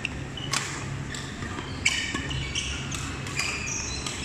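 Badminton hall sounds: sharp racket hits on shuttlecocks and short shoe squeaks on the court floor, echoing in a large hall, with the loudest hit about two seconds in.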